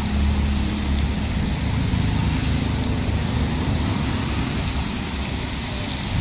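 Heavy rain pouring onto pavement and a road, a steady hiss of rainfall, with a low rumble underneath during the first second or so.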